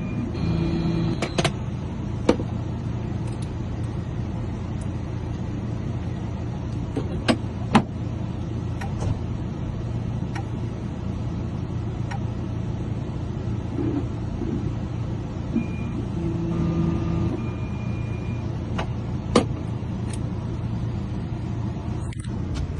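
Newly cut key being tried in a 2006 Chevy Express lock and ignition: a few sharp metallic clicks over a steady low hum, with a couple of short tones from the van.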